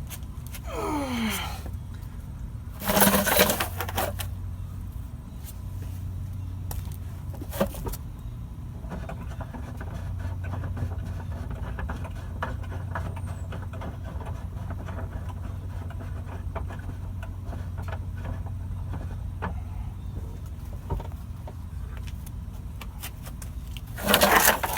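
Spare tire winch under a 2010 Dodge Caravan being worked by hand: a loud clank about three seconds in, then many small irregular ticks and scrapes, over a steady low hum.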